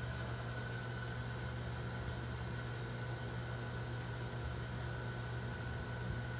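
Steady low electrical hum with an even hiss and a faint, steady high-pitched tone, unchanging throughout, with no distinct knocks or calls.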